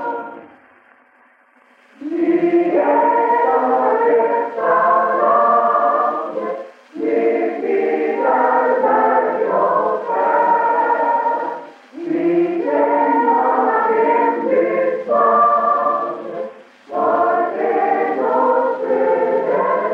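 A choir singing in phrases of four to five seconds with brief breaks between them, starting after about two seconds of quiet.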